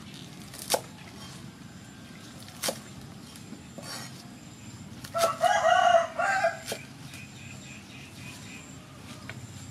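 Cleaver chopping through leafy green vegetable stalks onto a wooden chopping board: a few sharp chops a second or two apart. A rooster crows about five seconds in, louder than the chops.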